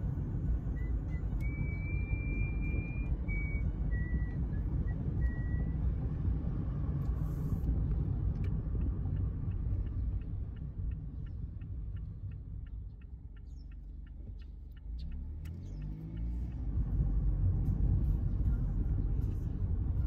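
Mazda Roadster's four-cylinder engine and road noise rumbling inside the cabin while driving. The car eases off and slows about two thirds of the way through, with a turn indicator ticking about twice a second. The engine then revs up as the car pulls away again.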